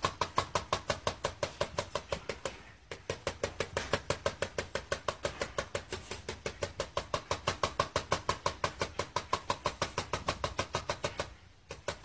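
A cockatiel rapidly tapping its beak on a clear plastic cake dome, about ten hollow taps a second, with short breaks a couple of seconds in and near the end.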